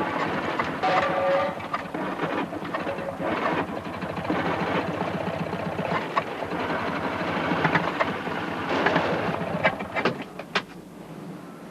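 Train whistle sounding briefly about a second in, then a train running past with a fast rhythmic clickety-clack of wheels on the rails. A few sharp clicks near the end.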